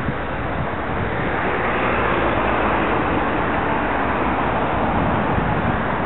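Steady rushing wind noise on the microphone of a camera riding on a moving bicycle, mixed with road traffic noise.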